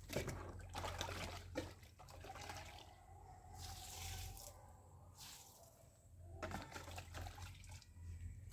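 Liquid scooped from a bucket with a long-handled dipper and poured out in splashes, three times a couple of seconds apart, with a knock or two of the dipper near the start.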